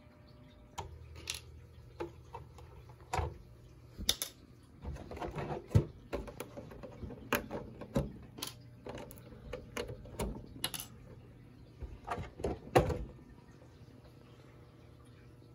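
Handling noise from a thin plastic RC car body shell being lifted off and turned over by hand: irregular taps, clicks and crinkly knocks, two of them sharper and louder, stopping near the end.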